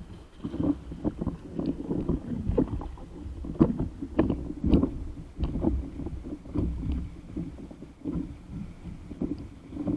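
Water splashing and slapping against the hull of an inflatable stand-up paddle board as it moves through small surf, in irregular uneven gushes and thuds, with wind buffeting the microphone.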